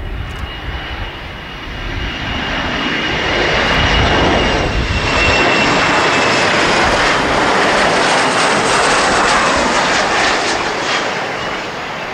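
Boeing 737-400's CFM56-3 turbofan engines on a low landing approach. A steady high whine drops slightly in pitch as the jet passes close by, over a jet rush that builds to its loudest in the middle and eases off near the end as the aircraft reaches the runway.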